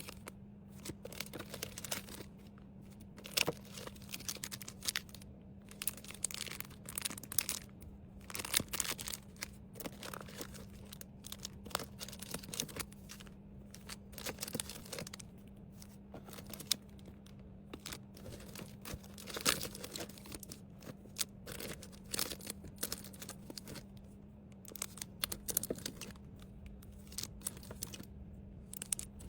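Plastic packaging and wrappers rustling and crinkling, with irregular short clicks and tearing sounds as small items are handled and packed, over a faint steady hum.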